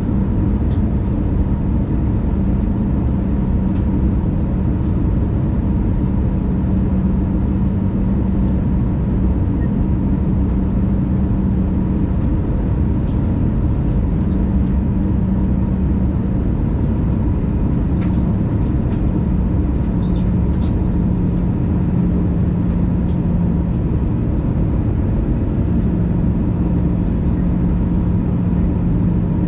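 Steady cabin noise inside an Airbus A319 airliner descending on approach: the jet engines' drone and rushing airflow, with a steady low hum that swells and fades slightly.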